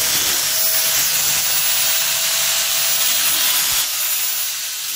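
Bosch angle grinder running with its abrasive disc grinding into a steel tube: a steady, loud hiss of disc on metal.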